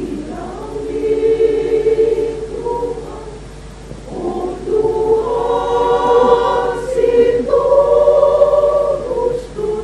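Women's choir singing in harmony, holding long chords. The singing swells, drops to a softer passage about four seconds in, then rises to a louder sustained passage through the second half.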